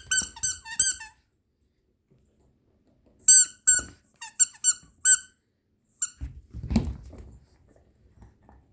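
Squeaky squirrel dog toy squeaked in quick bursts as a puppy chews it: four squeaks, a pause of about two seconds, then about five more and one last squeak. A dull thump and rustle follow near the end.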